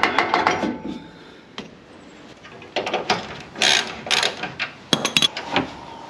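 Hand tools working on vehicle suspension bolts and parts. A quick run of ratchet clicks is followed by a pause, then several sharp metallic clanks, one ringing briefly.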